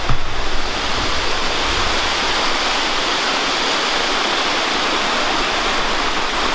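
Steady rush of a creek running high after heavy rain, with a brief low thump at the very start.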